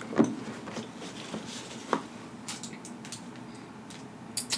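Handling noises as a burger is picked up off its paper wrapper: a few light knocks and rustles, the loudest about a quarter second in, and a short crisp rustle near the end as the burger reaches the mouth.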